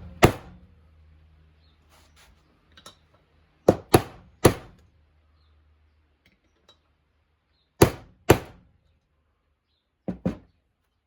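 Hammer tapping a PVC end cap to start a water pump mechanical seal squarely into the engine case: about eight sharp taps in short groups of two or three, with pauses between. The tapping starts the seal flush before it goes to the press.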